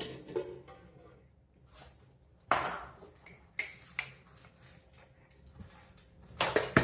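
Dishes being handled: a few separate knocks and clinks, with the loudest pair of knocks near the end.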